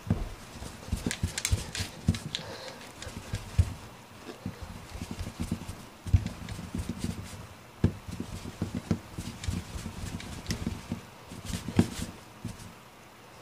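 Hand rolling a lump of Play-Doh into a long strand on a tabletop: irregular thuds and knocks of the palm and fingers against the table, with sharper clicks here and there.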